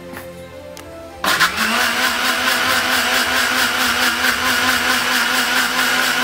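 Electric mixer grinder (mixie) switched on a little over a second in and running steadily at full speed, whipping egg, oils and water into a foamy, creamy emulsion.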